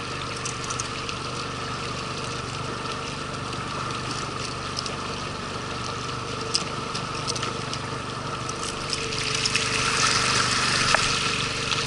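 Outboard motor running steadily on an inflatable boat, with water rushing and hissing along the hull. The water noise grows louder from about nine seconds in as the boat gets under way. A few light clicks of fishing tackle are heard.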